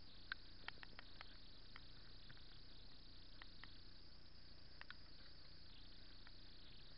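Faint steady hiss picked up by a chest-mounted action camera on a slowly ridden bicycle, with a scattering of small irregular clicks and ticks, most of them in the first five seconds and the sharpest about a third of a second in.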